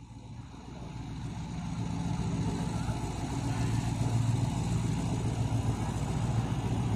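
Alsthom diesel-electric locomotive's engine running with a steady low drone, growing louder as the train approaches.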